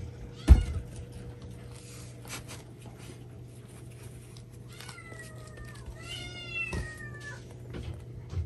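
A sharp thump about half a second in, then a domestic cat meows twice: a short falling call about five seconds in and a longer call about a second later.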